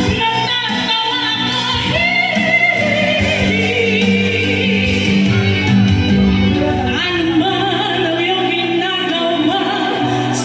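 A song with a lead singer's voice over steady musical accompaniment, played loud through a PA sound system.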